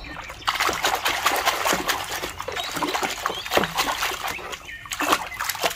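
A mud-covered plastic toy gun being washed by hand in water: splashing and sloshing with many quick clicks and knocks of plastic, and a few short squeaks.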